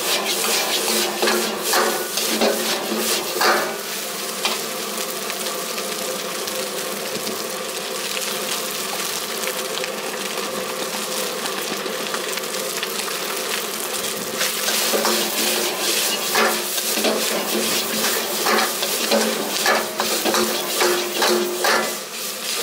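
Fried rice sizzling in a wok, with a wok ladle scraping and clanking against the pan in quick strokes for the first few seconds and again from about two-thirds of the way through; in between, only the steady sizzle.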